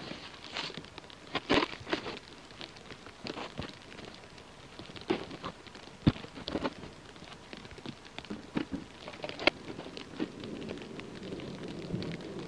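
Snow shovel scraping and scooping fresh snow, with footsteps crunching in deep snow: irregular scrapes and knocks, the sharpest about six seconds in.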